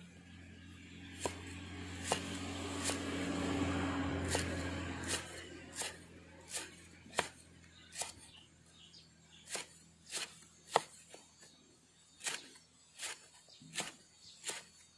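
A cleaver slicing lemongrass on a round wooden chopping block, each stroke a sharp knock, coming steadily a little more than once a second. A swell of rushing noise rises and fades over the first few seconds.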